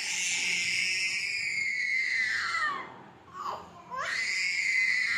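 A young child crying and screaming in long, high-pitched wails: one wail that rises sharply, holds and then falls away, a short cry a little past the middle, and a second long wail starting near the end.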